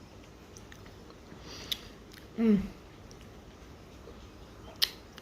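Close-up mouth sounds of a person chewing spicy kimchi: soft wet chewing with a few sharp clicks, and a short hummed 'mm' with a falling pitch about halfway through.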